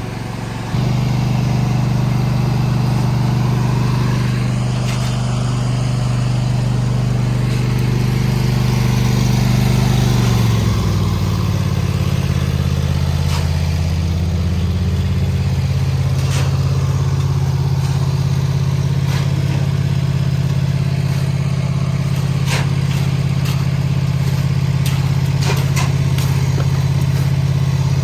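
Large engine running steadily at high speed, then dropping to a lower, steady speed about ten seconds in, with a few sharp knocks in the second half.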